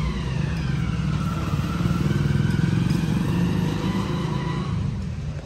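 A car's engine running close by as the car moves off, with a whine that slides down in pitch and then levels off; it eases slightly near the end.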